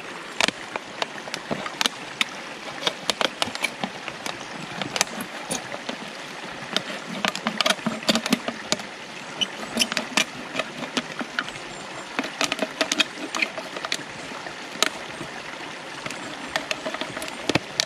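Carbon-steel knife cutting through a thin plastic water bottle, the plastic giving many irregular sharp crackles and clicks. Behind it, the steady rush of a stream.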